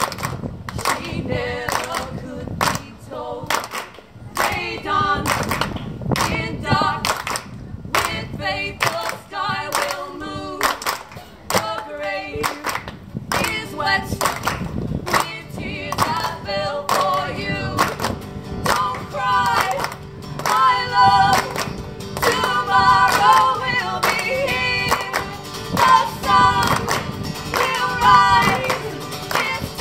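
Live folk-pop music: female voices singing, with a steady beat of hand claps at about two a second.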